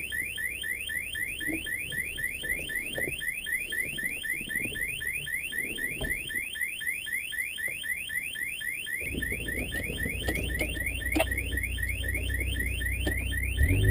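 Car alarm of a Nissan Patrol GR sounding a fast, steady run of rising chirps, about four or five a second, with the engine off. A low rumble joins about nine seconds in.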